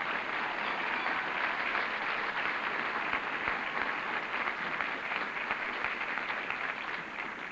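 Large outdoor crowd applauding steadily, the many claps blending into one continuous sound that fades near the end.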